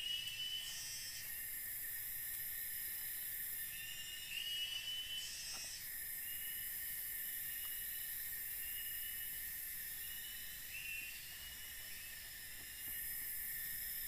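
Forest insect chorus: a steady high-pitched buzzing, with upper layers cutting in and out every few seconds. Short rising chirps repeat over it several times.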